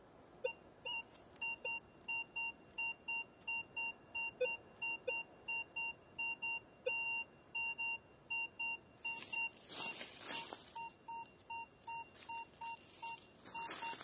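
Metal detector giving a target signal: short two-tone beeps repeating about three times a second as the coil sweeps over a target whose reading of about twenty is taken for a gold ring. Dry leaves rustle underfoot twice, about nine seconds in and near the end.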